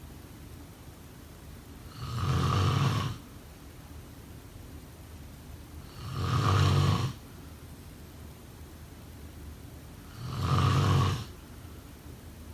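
A sleeper snoring in a slow, even rhythm: three snores about four seconds apart, each lasting about a second.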